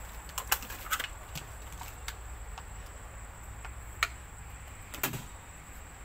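Clear plastic bag crinkling as it is handled, a scattering of sharp crackles and clicks, the strongest about half a second in, at about four seconds and just after five seconds. A steady high insect drone of crickets runs underneath.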